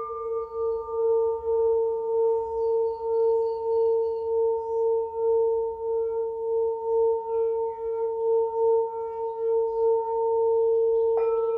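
Singing bowls ringing on with a steady mid-pitched tone that pulses and wavers about twice a second. A bowl is struck again near the end, adding a fresh, brighter ring.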